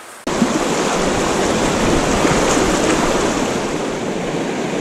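Steady rushing of creek water flowing over a tailout, cutting in abruptly just after the start.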